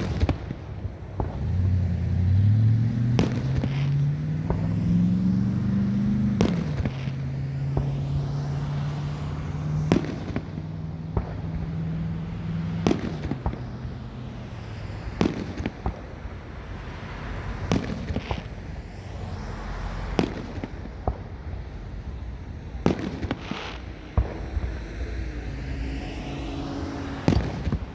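Fireworks bursting in the sky: sharp bangs every few seconds, some in quick pairs, over a rumbling background. A low droning tone rises in pitch over the first few seconds, then holds steady to about halfway through.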